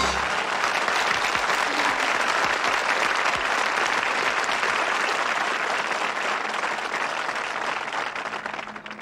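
Audience applauding after a song, steady and dense, then cut off suddenly near the end.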